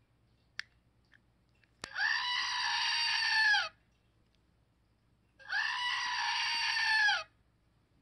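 Screaming Goat novelty toy: a sharp click as its button is pressed, then the figurine plays a recorded goat scream about two seconds long that drops in pitch at its end. A second scream follows after a gap of under two seconds.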